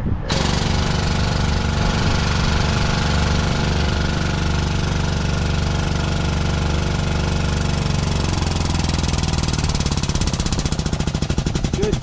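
Hydraulic pump of a portable hose crimping press running under load, crimping a new fitting onto a hydraulic hose. A steady machine drone starts abruptly, takes on a rapid pulsing beat in the last few seconds as the crimp finishes, and cuts off suddenly.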